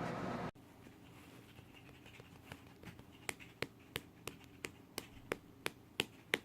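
Black toy poodle chewing a treat: a run of crisp clicks, about three a second, starting faintly about two seconds in and growing louder. Before them, a steady hiss cuts off about half a second in.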